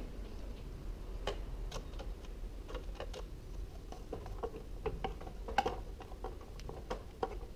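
Light, irregular clicks and taps of a hand screwdriver turning a small screw into a garage door opener's logic board and its plastic mount, over a low steady hum.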